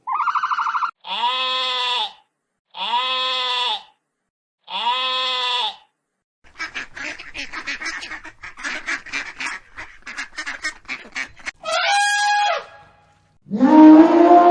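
A sequence of animal calls. It opens with a short call and three drawn-out calls of about a second each. Next comes a long run of quick chattering calls, then one more call, and near the end a loud, drawn-out call begins.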